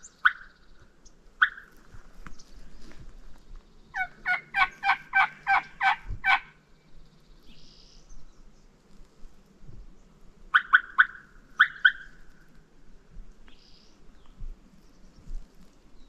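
Wild turkey calling: a run of about ten yelps at roughly four a second, with short sharp clucks a few seconds before and a quick cluster of four or five more near 11 seconds.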